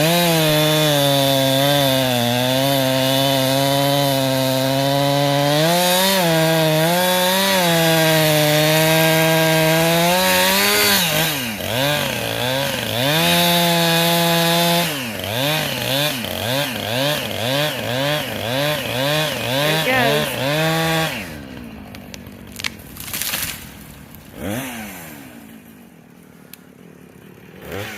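Two-stroke chainsaw cutting into a poplar trunk at a steady high speed, then revved up and down repeatedly before shutting off about three quarters of the way through. A few sharp knocks follow in the quieter stretch after it stops.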